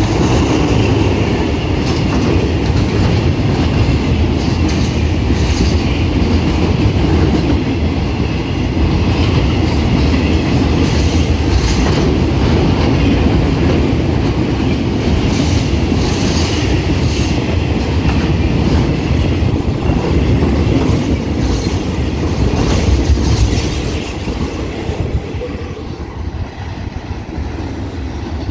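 A freight train of container wagons passing: a dense rumble of wheels on rail, with repeated clickety-clack from the wheels crossing rail joints. About four-fifths of the way through the noise drops and fades as the last wagons go by.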